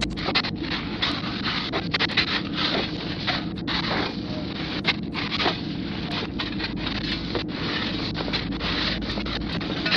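Steady wind-like rumble on the microphone, broken by frequent short scrapes and clicks of spilled gravel being dug and shifted by hand and shovel.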